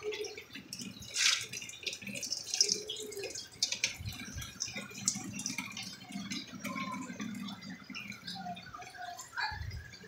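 Hot water poured into the ice-blocked drain pipe at the back of an LG refrigerator, splashing and dripping irregularly, with clicks and knocks from handling.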